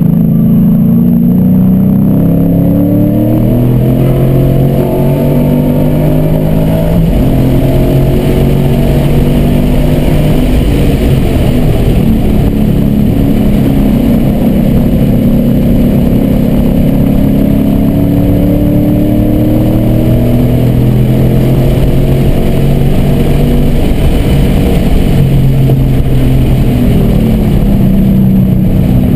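Car engine heard from inside the cabin, driven hard at track speed. Its pitch climbs repeatedly under throttle and falls back at gear changes and braking.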